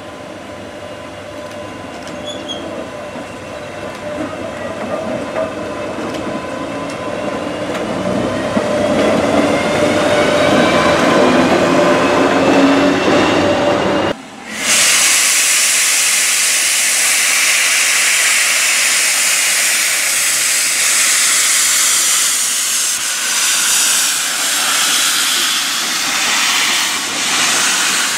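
Rail noise building steadily louder, with a faint whine rising in pitch, as a train comes in. About halfway through it cuts suddenly to LMS Royal Scot Class steam locomotive 46115 Scots Guardsman hissing loudly as it pulls slowly past with its coaches.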